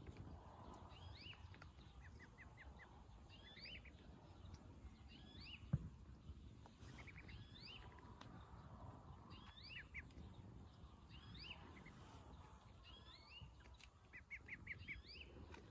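A bird calls faintly in a short, high phrase of falling notes that repeats about every two seconds, some phrases ending in a quick trill. A single sharp click about six seconds in is the loudest sound.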